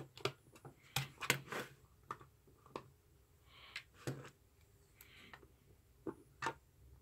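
Scattered light clicks and taps as a small precision screwdriver works the battery-cover screw on a plastic multimeter's back and the meter is handled, with a couple of short, soft scrapes.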